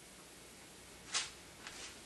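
A single short, sharp click about a second in, then a fainter tick, over quiet room tone.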